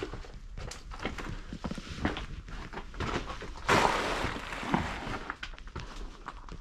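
Footsteps crunching over a loose gravel-and-rock floor, in an irregular run of crunches. A louder noisy scrape lasting under a second comes a little past halfway.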